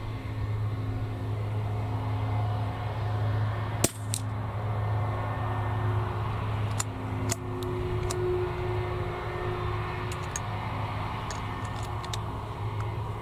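A steady low hum with a single sharp crack about four seconds in: a shot from a .22 LR rimfire target rifle. A few faint clicks follow later.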